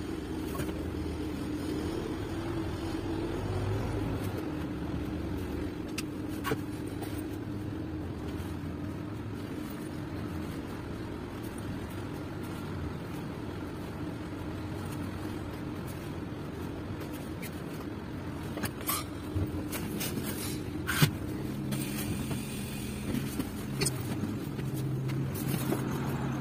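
Old bus engine running steadily, heard from the driver's cab, with a few short knocks and clicks in the second half.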